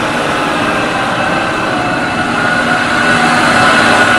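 A large forklift's engine running steadily as it drives and turns carrying a loaded crate, with a faint whine over the engine noise.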